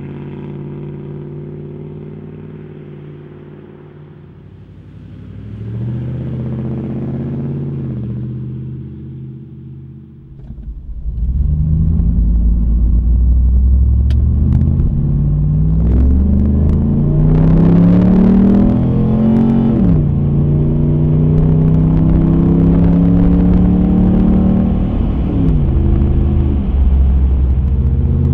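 Dodge Ram Hemi V8 exhaust through a Dynomax Race Bullet muffler. At first it fades as the truck drives away, with a brief swell partway. Then it is heard loud from inside the cab as the truck accelerates, its pitch climbing and dropping sharply twice at the upshifts.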